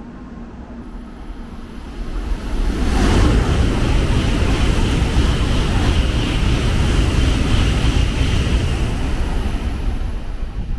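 N700-series Shinkansen bullet train running past close by along the platform. Its rush of air and rolling noise swells about two seconds in and then stays loud and steady, with a high hiss over it.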